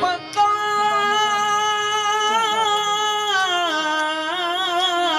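Qawwali music: harmonium with a male voice holding a long drawn-out note between sung lines, wavering in ornament, then stepping down in pitch about three and a half seconds in.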